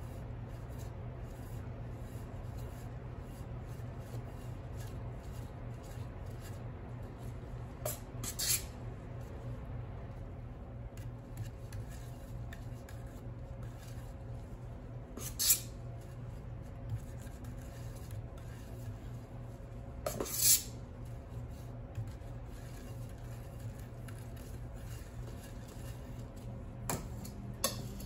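Cake-decorating utensils clinking against dishes and hard surfaces, a handful of short sharp clinks scattered through, some in quick pairs, over a steady low hum.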